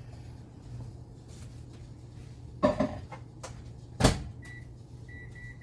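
Microwave oven in use: a clatter, then the door shutting with a sharp knock, followed by four short high beeps from the keypad as the cooking time is set.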